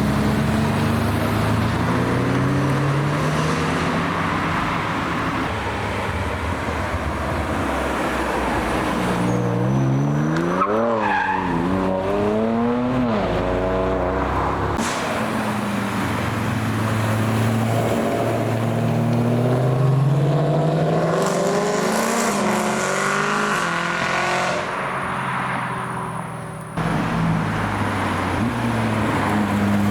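Performance car engines accelerating and revving as they drive off, the pitch climbing through the gears and dropping at each shift, with a spell of quick rev blips about a third of the way in. The sound changes abruptly twice as one car gives way to another.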